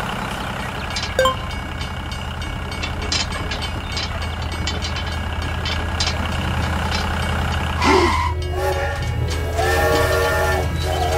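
Battery toy steam train's electronic whistle sounding in two wavering blasts from about eight seconds in, over a steady low motor hum and light clicking.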